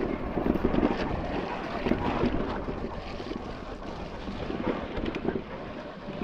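Creek water rushing and splashing, a steady irregular wash with small crackling splashes throughout.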